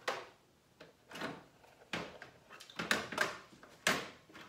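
Metal tools clattering and a toolbox drawer being worked, in about six sharp bursts spaced roughly a second apart.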